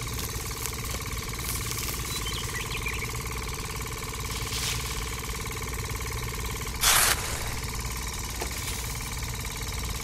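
A steady mechanical hum at an even pitch. About seven seconds in, a short loud scraping rush as a small metal trowel scoops rice grains off a paper sheet.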